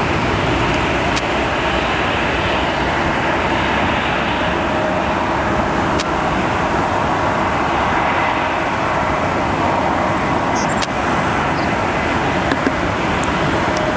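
Airbus A319 jet engines running, a loud, steady rushing noise that holds level throughout with a faint steady hum underneath.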